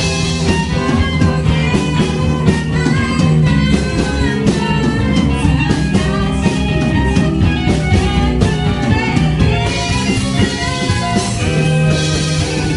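Live rock band playing: electric guitars and drum kit, with a woman singing into a microphone. The cymbals get brighter near the end.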